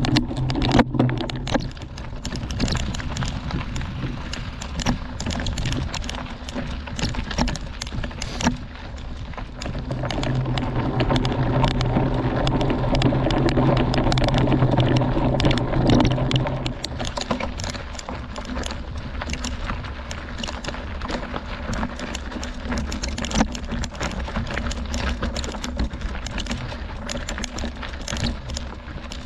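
Mountain bike tyres crunching over a gravel and rock dirt road with the bike rattling: a dense patter of small clicks and knocks. A steady low hum joins it for several seconds after the middle, when it gets louder.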